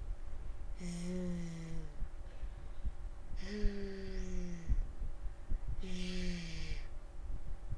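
A young woman's voice saying "zoo" three times, each slow and drawn out on a steady pitch with a buzzing z: pronunciation drill of the /z/ sound.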